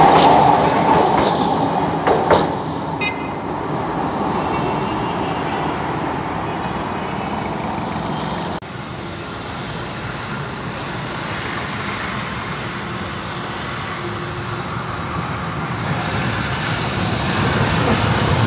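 Old blue-and-cream tramcars rolling past on the rails, loudest at the start and fading, with a couple of sharp clicks about two seconds in. Then comes steady street traffic noise, which drops suddenly about eight and a half seconds in and grows louder near the end as a newer yellow tram approaches.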